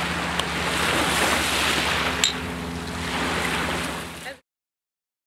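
Small waves lapping on a gravel beach, heard as a steady wash, with two short sharp clicks. The sound cuts off abruptly to silence about four seconds in.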